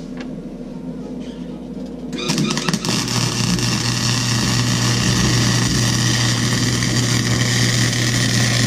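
MIG welder striking an arc with a few sputtering starts about two seconds in, then crackling steadily over a low hum for about six seconds while welding a crack in an exhaust manifold, cutting off abruptly at the end.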